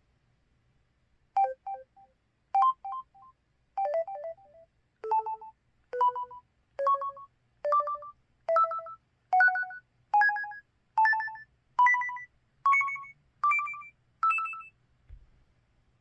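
Casio canU801Ex mobile phone keypad tones: about fifteen short electronic blips of two or three quick notes each, one key press after another, climbing step by step in pitch, spaced about a second apart at first and then a little faster.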